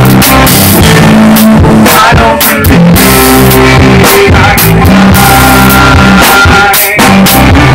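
Rock band playing very loud at close range: a drum kit with cymbal and drum strikes about twice a second over sustained guitar chords. The band breaks off for a moment near the end and comes straight back in.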